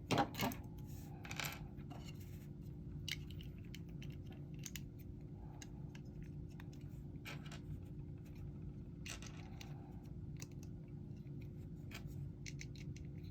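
Plastic model-kit parts clicking and snapping as they are pressed together and handled, a few sharp clicks at the start, then scattered lighter taps, over a faint steady hum.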